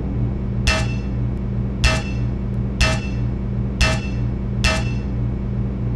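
Sound-effect footsteps of an animated mech walker: five heavy metallic clanks about a second apart, each with a short ring, over a steady low mechanical hum.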